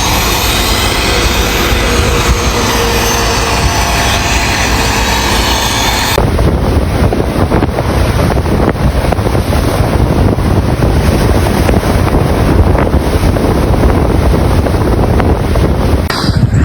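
Strong wind buffeting the microphone, a loud steady rush with a heavy low rumble. The sound changes abruptly about six seconds in.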